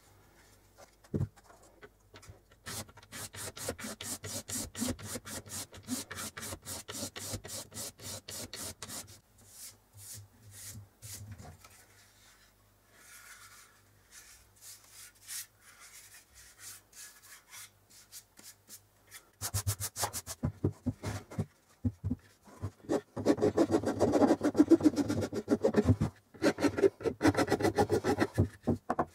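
Hand-sanding a wooden knife block: sandpaper rubbed in rapid back-and-forth strokes over the bare wood, easing off in the middle and loudest near the end.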